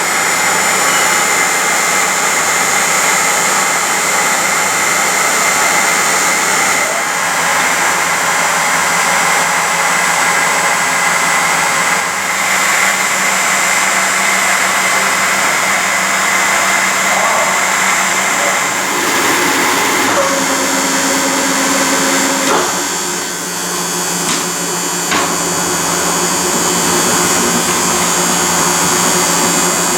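Smart & Brown 1024 lathe running under power, a steady mechanical whine and hum from its motor and headstock. Its note shifts a couple of times past the middle, with a brief dip in level.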